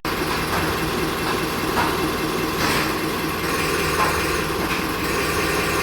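A machine running steadily, with a few irregular knocks.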